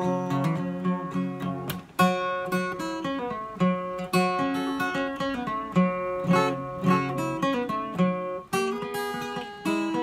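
Steel-string acoustic guitar played solo, with a capo: picked melody notes over a repeating bass line, in an instrumental break with no singing.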